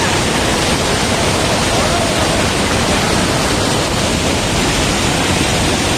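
Waterfall pouring down, a steady, loud rushing of water close to the microphone.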